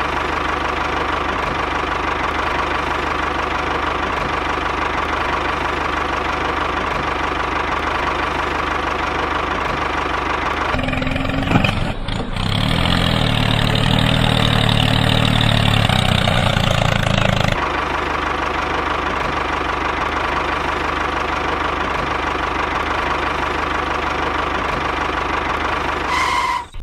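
Diesel tractor engine running steadily. A louder, deeper-running stretch starts abruptly about eleven seconds in and lasts about six seconds.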